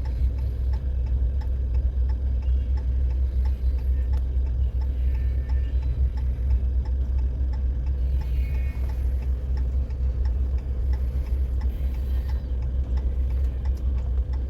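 A car's hazard flasher clicking at an even, steady pace inside the cabin, over a steady low rumble.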